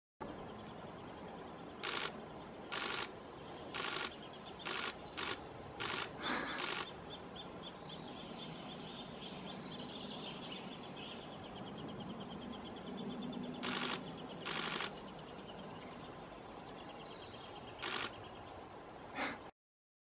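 Eurasian three-toed woodpecker nestlings begging in the nest cavity: a high, fast-pulsing chatter that carries on through most of the stretch. About ten brief sharp sounds stand out above it, bunched in the first seven seconds and a few more later.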